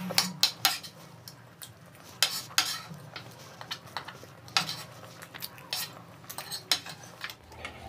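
Metal fork and spoon clinking and scraping against plates of macaroni while eating, in irregular sharp clinks, the loudest ones in the first three seconds and one near the middle.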